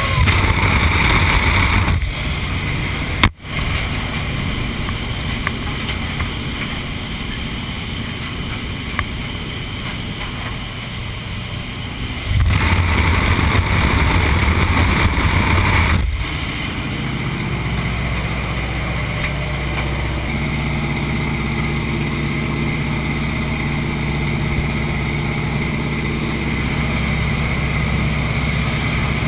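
Rushing wind and engine noise of a light jump plane in flight, heard through its open door. The rush swells louder near the start and again for a few seconds around the middle, with a sudden brief dropout about three seconds in; in the second half a steady engine hum is clearer.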